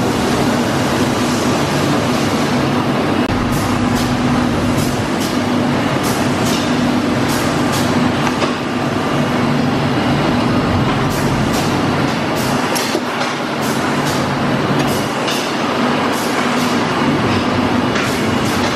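Tromp/Autobake cupcake, muffin and cookie production line running: a loud, steady machine hum with frequent sharp clicks and clacks from the conveyors and mechanisms.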